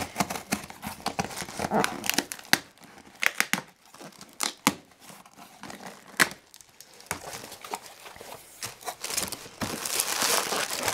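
Scissors cutting and tearing through packing tape along the seam of a cardboard box, ragged rasps broken by several sharp clicks. Near the end the box is opened and plastic packaging crinkles.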